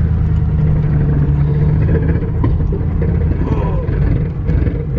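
A car moving on the road under tow: a loud, steady low rumble of engine and road noise.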